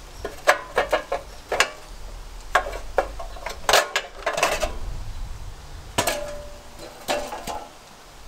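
Metal parts and hand tools clinking and knocking, about a dozen irregular sharp clanks, one about six seconds in ringing briefly, as a part is worked back onto an engine.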